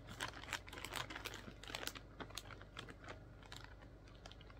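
Faint, quick run of light clicks and crinkles from a bag being handled as a handmade snowflake ornament is taken out of it, thinning out about two seconds in.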